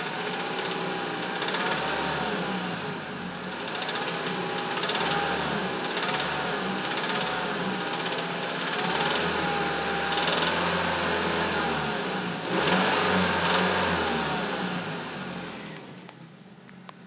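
2004 Mazda3 four-cylinder engine running with a fast, steady ticking from the passenger side of the engine, its pitch rising and falling every couple of seconds. The owner likens the tick to valve noise; it comes on as the engine warms and was not cured by a new timing chain, lifters or tensioner. The sound drops away sharply near the end.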